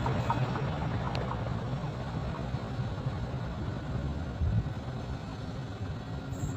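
CC206 diesel-electric locomotive's engine rumbling as the train departs, the sound slowly fading as it pulls away.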